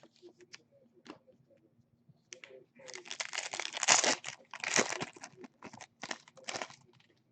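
A trading-card pack wrapper being torn open and crinkled: a few faint clicks, then a run of rustling crackles lasting about four seconds.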